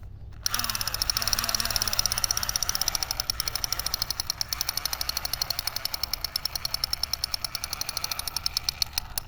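Battery-powered toy gun firing its electronic sound effect: a rapid, even machine-gun rattle that starts about half a second in, runs for nearly nine seconds, and cuts off suddenly near the end.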